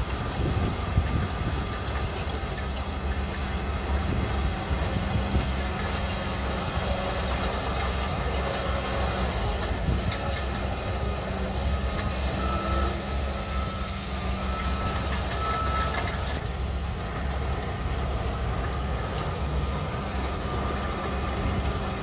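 Shantui DH17C3 Pro bulldozer's diesel engine running steadily as it works. A reverse alarm beeps repeatedly near the middle.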